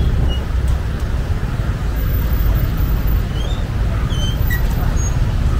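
Steady low rumble of road traffic, with a few short faint high chirps near the middle and end.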